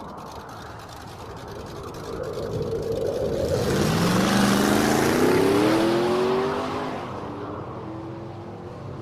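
A car engine accelerating, its pitch rising steadily as it swells to a peak about four to six seconds in, then fading away.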